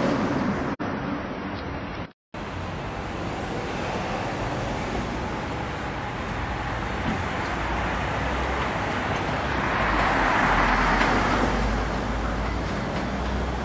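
Melbourne suburban electric train approaching a station, a steady rumble of wheels and motors that builds to a peak about ten seconds in. A brief gap of silence about two seconds in.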